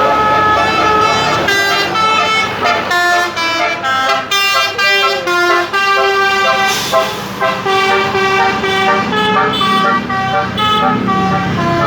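Buses sounding Basuri multi-tone 'telolet' horns, rapid runs of changing notes like a tune, with bus engines running underneath.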